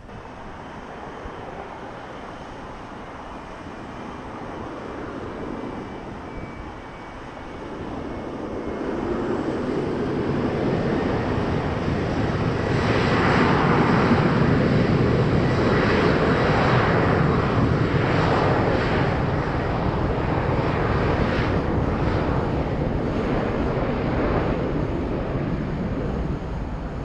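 Boeing 737 jet airliner's two engines at takeoff thrust on the takeoff roll: a rumble that builds over the first several seconds and becomes loud and crackling from about halfway in, easing slightly near the end.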